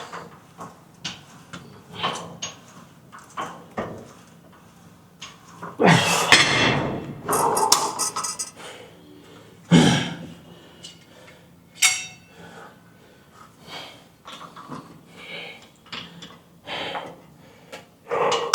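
Dumbbells clinking and knocking as they are handled and set down, with a few louder metal clanks that ring briefly.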